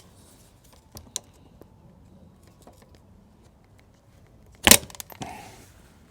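Hand tools working a motorcycle's footrest mounting. There are a few light metallic clicks, then one sharp knock about four and a half seconds in, followed by smaller clicks.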